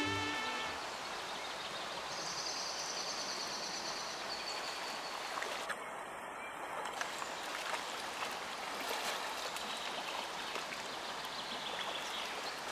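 Shallow river running steadily over a stony riffle: a constant even wash of flowing water.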